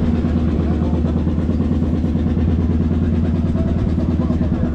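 An engine idling steadily close by: a low, even hum with a fast regular pulse.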